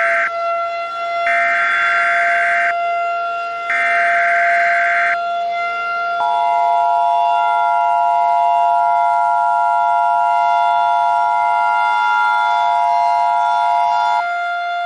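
Emergency Alert System tones: three screechy bursts of the digital SAME header, then the two-note EAS attention signal held for about eight seconds. Under all of it a civil defense siren sounds continuously at one pitch.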